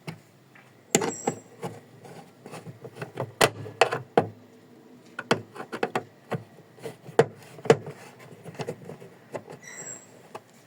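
Irregular clicks and knocks from work on the Prius trunk door's repaired part, with two brief high squeaks, about a second in and near the end.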